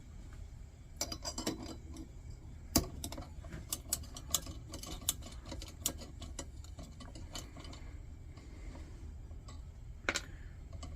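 Irregular light metal clicks and taps of a 7/16 wrench working the top nut of a vintage Coleman 222B lantern, loosening it so the cage can come off.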